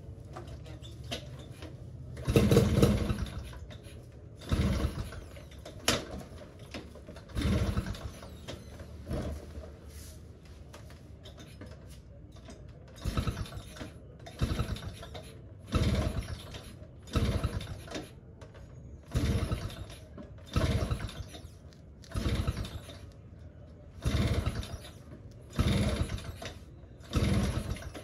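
Two-stroke Yamaha Sport 100 motorcycle being kick-started over and over, about fifteen kicks at a steady pace with a short pause partway, the engine turning over in short bursts each time without catching.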